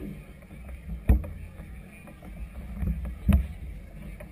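Choppy harbor water slapping against a floating clubhouse's hull, with a steady low wind rumble on the microphone; two sharper slaps, about a second in and near the end.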